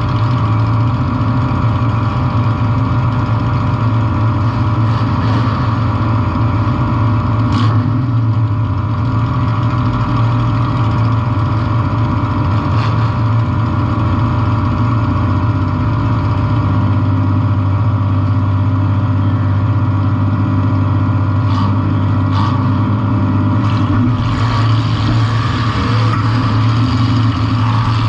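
Compact demolition derby car's engine running loud and steady, with a few sharp knocks scattered through and a harsher, noisier stretch near the end.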